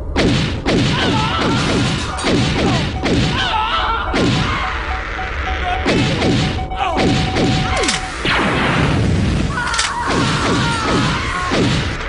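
A dense, layered barrage of stock sound effects: crashes and thuds mixed with many quick sweeps falling in pitch, one after another, with a steady held tone between about six and eight seconds in.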